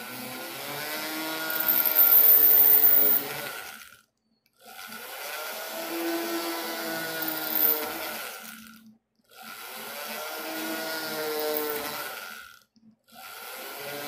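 Small hand-held rotary tool (mini drill) with a fine bit drilling holes in a 1.2 mm plate made from old coins. It runs in bursts of about four seconds, each rising then falling in pitch, with short silences between. There are three bursts, and a fourth starts near the end.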